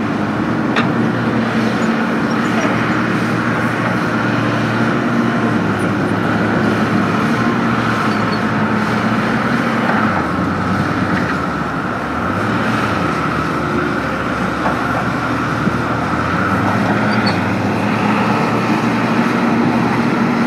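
Excavator engine running steadily under a steady higher whine. About halfway through, its pitch and level dip briefly and come back, as the load changes.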